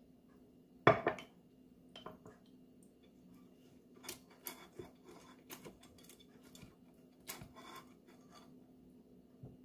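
Kitchenware being handled: a sharp knock about a second in, then scattered light clinks and clicks of containers and utensils as coconut oil is brushed on to keep the halaya from sticking. A faint steady hum runs underneath.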